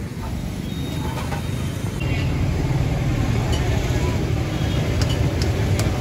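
Road traffic: a steady motor-vehicle rumble and street noise that grows louder about two seconds in.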